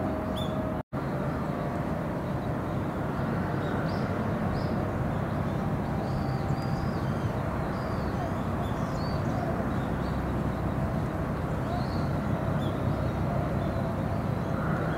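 Outdoor ambience: a steady low rumble with small birds chirping now and then. The sound cuts out for an instant about a second in.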